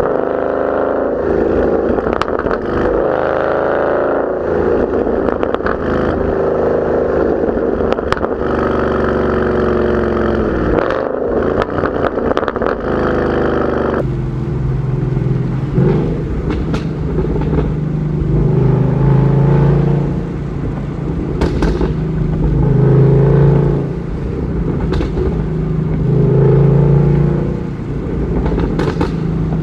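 2014 Mustang GT's 5.0-litre V8 through a Borla ATAK catback exhaust with an off-road H-pipe, revving up and down with scattered sharp crackles and pops. About halfway through the sound changes abruptly to a deeper exhaust note, revved and let fall every few seconds, still with occasional pops.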